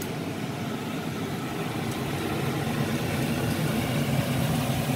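Minced garlic sizzling in oil in a nonstick pan on an induction hob over a steady low hum. The sound grows slowly louder.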